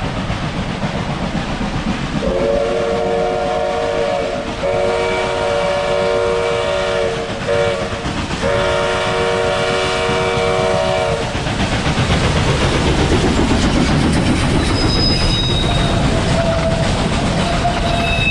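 Steam locomotive chime whistle sounding the level-crossing signal: long, long, short, long, each blast a chord of several notes. After that the train runs past close by, the rumble and clatter of the wheels growing louder from about twelve seconds in.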